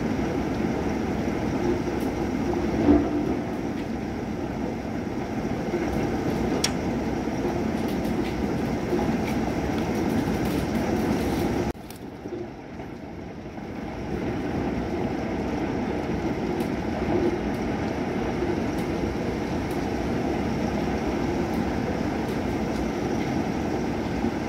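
Thunderstorm: a steady, low rumbling wash of rain and storm noise with a few faint ticks. About halfway through it drops suddenly much quieter for about two seconds, then returns.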